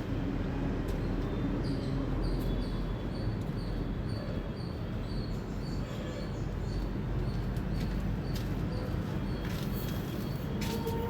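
A squirrel chirping: a series of short, high chirps at about two a second, over a steady low rumble in the background.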